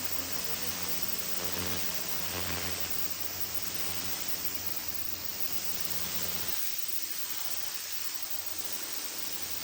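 Worx WG605 electric pressure washer running with a steady hiss of water spray. Its motor hum drops out about two-thirds of the way through while the hiss goes on.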